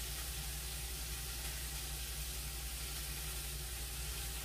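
Steady, even hiss with a low hum underneath.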